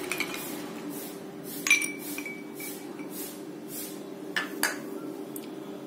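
Ice cubes going into a glass of rose milk, knocking against the glass: a few separate clinks, one about a second and a half in with a short ringing tone, and a quick pair a little over four seconds in.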